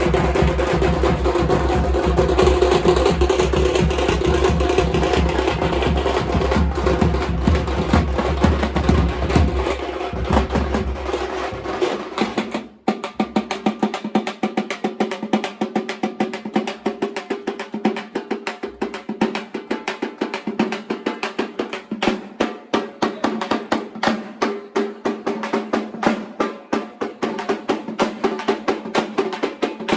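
Loud, fast drumming by a group of drums. For the first twelve seconds or so it is dense with deep bass booms; then, after a brief break, it turns to rapid, crisp strokes with little bass.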